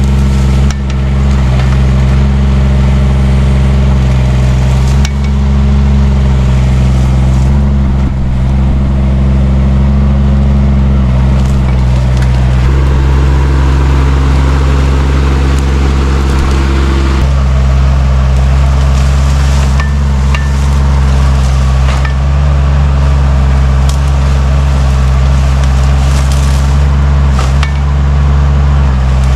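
Mini excavator engine running steadily under working load, its pitch shifting a few times as the hydraulics take up the rake's digging, with scattered cracks and snaps from weeds and brush being ripped out by the rake.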